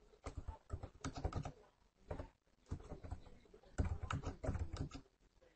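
Computer keyboard typing in short bursts of quick keystrokes, with brief pauses between the bursts.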